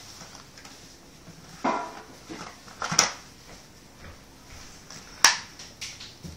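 A crawling baby's bare hands slapping on a parquet wood floor: a few spaced-out pats, the sharpest about three and about five seconds in.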